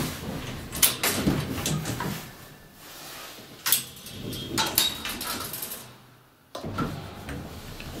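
Elevator car's collapsible metal bar gate being slid along, with a series of metal clanks and rattles. A brief lull, then a sudden clunk about six and a half seconds in.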